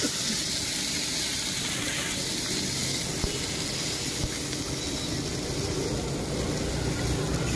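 Water splashed into a very hot black iron wok over a high gas flame, sizzling with a loud, steady hiss as it flashes to steam, over the low rumble of the burner.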